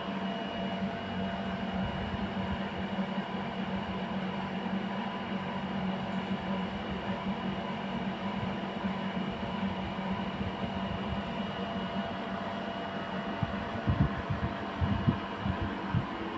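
6000 BTU portable air conditioner running at its normal noise level: a steady hum and fan rush with a faint high tone above it. A few low bumps come near the end.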